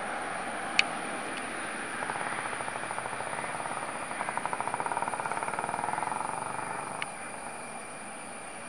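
Jet airliner's engines roaring and fluttering as it climbs away after takeoff, the noise fading in the last couple of seconds. There is a sharp click about a second in.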